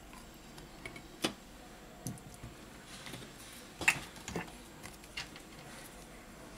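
Scattered light taps and clicks of hands handling small parts on a silicone repair mat: a phone's back cover being set down and tubes of glue picked up and uncapped. The loudest tap comes about four seconds in.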